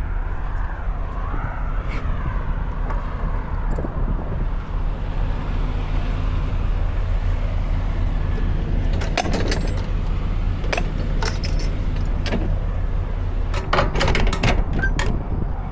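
Steady low rumble of an idling truck diesel engine, with three short bursts of metallic jingling and clinking about nine, eleven and fourteen seconds in.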